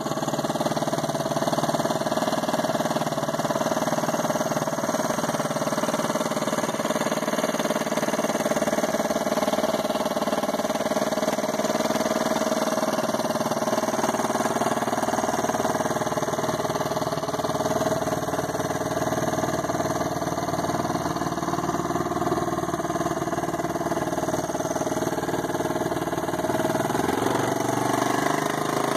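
Small Honda four-stroke outboard motor running steadily at idle out of the water, its propeller in the air; the pitch rises a little near the end.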